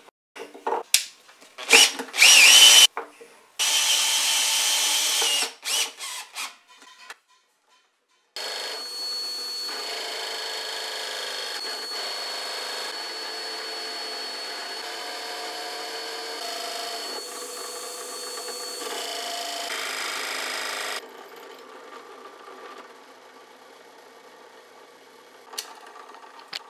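Drill press running with a 2.5-inch Forstner bit, boring a large flat-bottomed hole into a hardwood block in several stretches that start and stop. The longest run, starting about a third of the way in, is a steady machine sound with a thin high whine. It drops to a quieter steady running sound near the end.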